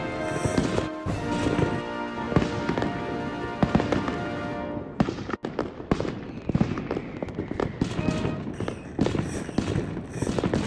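Aerial fireworks bursting, a run of sharp booms and crackles about one a second, over orchestral music.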